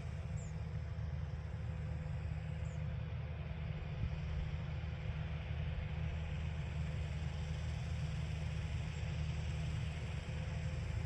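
Tractor diesel engine running steadily, a low even drone with no change in speed.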